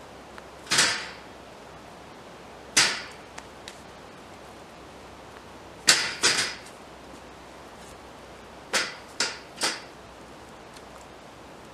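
Seven sharp impacts, each dying away quickly: single strikes about one and three seconds in, a quick pair about six seconds in, and three close together near the end.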